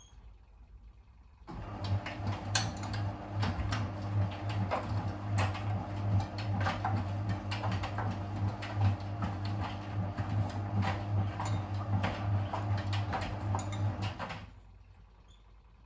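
Miele WS 5405 front-loading washing machine tumbling its drum in the wash cycle: a steady motor hum with a run of knocks and clunks from the load turning inside the drum. It starts about a second and a half in and stops near the end as the drum pauses before turning the other way.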